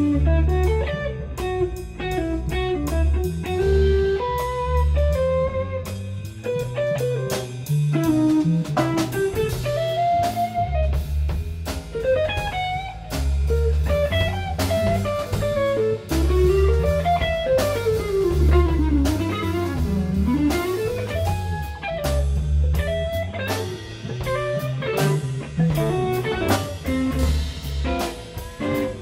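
Electric guitar, electric bass and drum kit playing a free improvisation. The guitar plays a winding line with slides that sweeps down and back up about two thirds of the way in, over deep bass notes and steady drum and cymbal hits.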